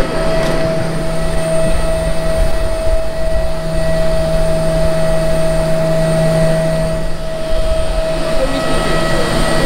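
Jet engines of a parked business jet running at idle: a steady whine with a low rumble underneath.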